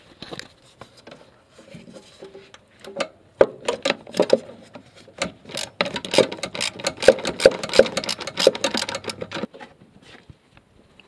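Socket ratchet on an extension clicking in quick runs as it backs off the lower mounting nut of a clutch master cylinder. A few scattered ticks come first; the clicking starts in earnest about three seconds in and stops a little before the end.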